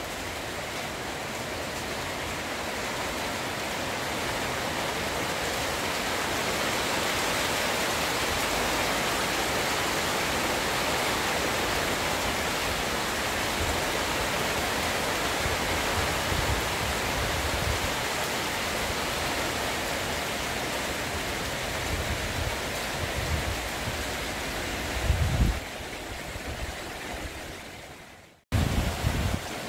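Steady heavy rain pouring onto leaves, the ground and a sheet-metal roof, a dense even hiss. Low rumbles come and go in the second half, the sound drops out abruptly just before the end, then returns with a loud low rumble.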